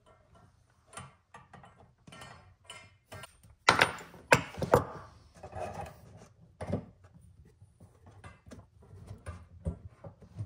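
Irregular knocks and thuds of things being handled, with a few louder clunks about four seconds in and again near seven seconds.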